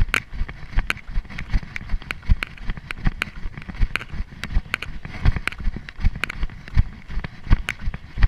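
Running footsteps on dry leaf litter and grassy forest floor, a steady stride of about three steps a second, each footfall a dull thud with a crackle, picked up close by a chest-mounted camera.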